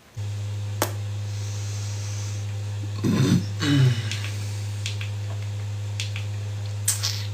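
A steady low hum that switches on abruptly and then cuts off to dead silence. About three seconds in, a brief louder low sound falls in pitch, and there are a few faint clicks.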